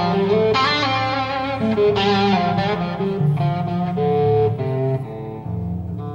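Background music: a guitar plays a melodic lead with wavering, bent notes over a bass line.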